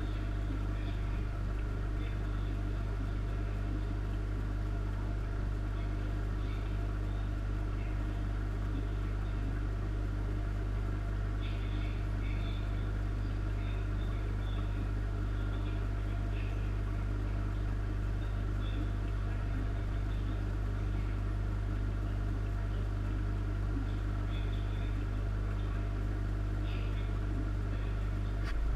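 Steady low hum of running aquarium equipment, the air supply for the tank's sponge filters, with faint scattered ticks higher up and a brief knock near the end.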